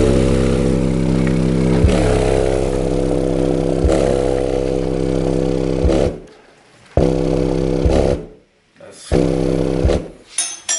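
Orion HCCA subwoofer driven hard with a low bass tone, a dense buzzing stack of overtones, with a click about every two seconds as the tone shifts slightly in pitch. From about six seconds in, the sound repeatedly cuts out and comes back, which the owner puts down to the amplifier being unable to handle the roughly 3-ohm load.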